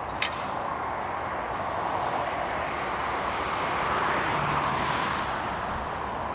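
Case tractor working under load pulling a plough, a steady engine-and-machinery noise that swells about four seconds in and then eases as it passes. There is a single sharp click just after the start.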